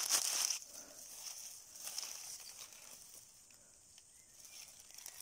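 Grass and dry leaf litter rustling as a hand pushes through them to pick a mushroom, loudest in the first half second, then faint scattered rustles.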